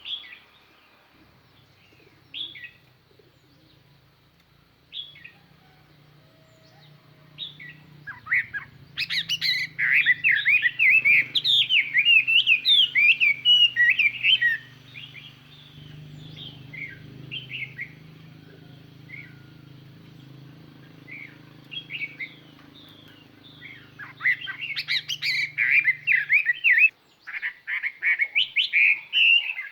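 Chinese hwamei (a decoy bird) singing: long, rapid runs of varied, sliding whistled phrases about 8 seconds in and again from about 24 seconds, with scattered single notes between. A faint low hum sits underneath most of the time.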